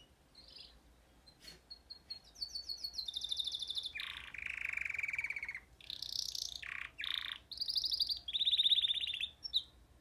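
Caged canary singing: faint notes at first, then from about two seconds in a string of fast trills, each phrase at a different pitch. The song stops shortly before the end.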